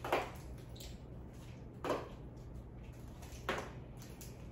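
Small round magnets clicking onto a magnetic dry-erase whiteboard one at a time: three short clicks, spaced a little under two seconds apart.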